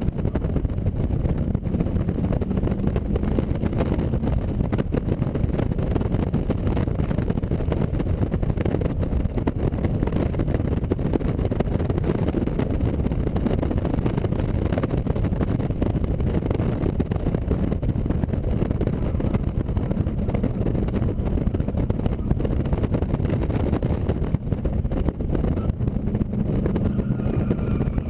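AC Cobra Mk IV's V8 engine pulling hard on a hill-climb run, a steady, dense engine drone heard from on board.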